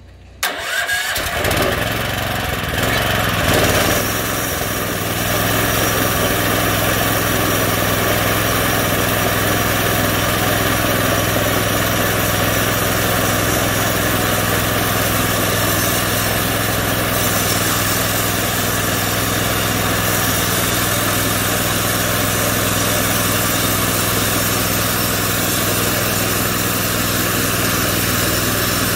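Small gasoline engine of a DIY bandsaw mill starting up about half a second in, then running steadily and driving the band blade.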